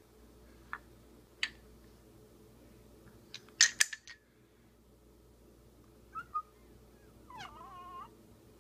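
Wooden ring-stacker toy knocking and clacking as a baby bangs it: a couple of light taps, then a sharp double clack about three and a half seconds in. Near the end comes a short, wavering high whine.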